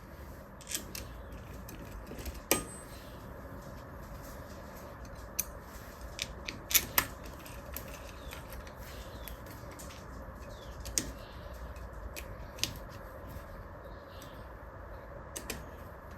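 Scattered sharp metallic clicks and clinks of hand tools and small engine parts being handled, with a loud pair about seven seconds in, over a steady background hum.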